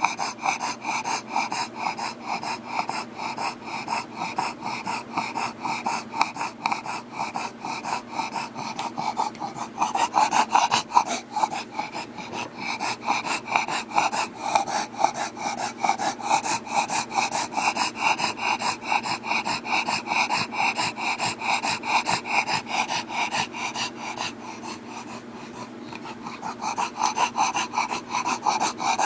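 A bulldog breathing heavily and fast, a noisy, rasping breath several times a second, briefly easing a little near the end.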